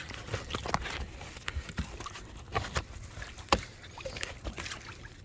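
Irregular splashes and light knocks of water against the sling and boat side as a big blue catfish is held in the water, with the sharpest knock about halfway through.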